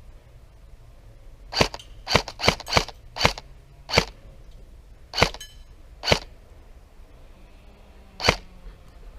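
Airsoft gun firing about nine single shots in sharp cracks, irregularly spaced. Most come close together in the first half, then the gaps widen to the last shot near the end.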